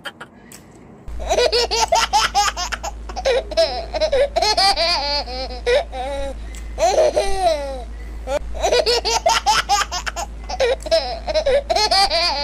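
High-pitched, baby-like laughter in repeated giggling bouts, an added laughter sound effect, starting about a second in over a steady low hum.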